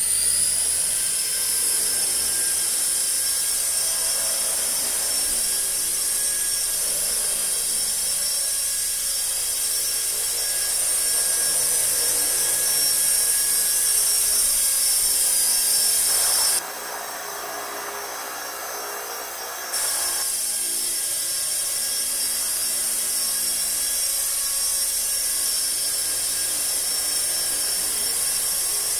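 Kyosho EP Caliber M24 electric RC helicopter in flight: a steady, high-pitched whine from its electric motor and rotors. About seventeen seconds in, the high whine drops away for about three seconds and the sound turns duller, then comes back.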